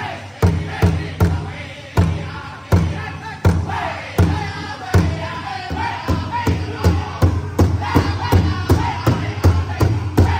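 A powwow drum group striking a large shared drum together in a steady beat, about two and a half strikes a second, and singing in unison. In the middle the beat thins to a few single strikes under the singing, then comes back steady and a little quicker.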